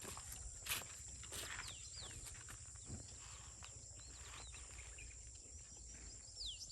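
Outdoor rural ambience: a steady high-pitched insect drone, with a bird giving short, quickly falling whistles several times, most of them near the end. A few faint knocks, the loudest less than a second in.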